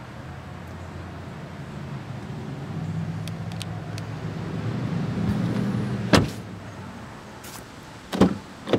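A low hum swells over several seconds, then the rear door of a Chrysler 300C shuts with one sharp slam about six seconds in. Two short latch clicks follow near the end as the front door handle is pulled.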